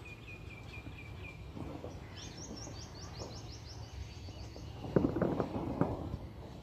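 Small birds chirping: a short run of repeated notes, then a faster, higher run of chirps. About five seconds in, a brief burst of knocks and rattling is the loudest sound.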